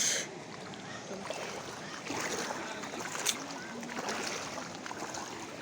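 Floodwater from the overflowing Chiri river rushing through the village in a fast current, a steady noisy wash of moving water.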